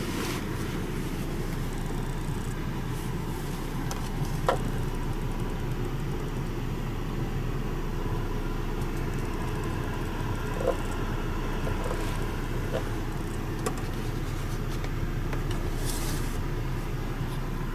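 Steady low rumble inside the cabin of a stationary Volvo S60, with a few faint clicks.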